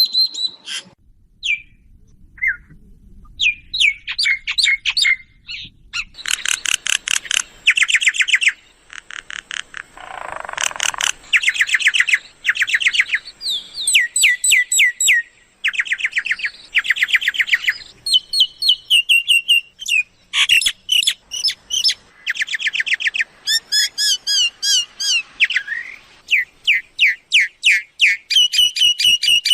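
Myna calling, used as a decoy to lure wild mynas: fast rattling trains of notes alternating with whistles, and a harsh squawk about ten seconds in.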